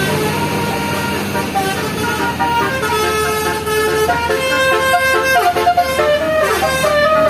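Bus engine running, then its Basuri telolet musical horn plays a tune of stepping notes with a few pitch glides, starting about three seconds in.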